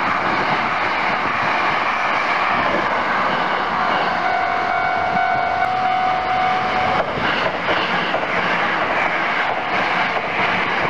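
Hankyu electric trains passing close by at a level crossing: an 8000-series limited express, then a 1000-series local on the other track, with a continuous loud rumble of wheels on the rails. Thin steady tones ride over the noise, one held from about four to seven seconds in.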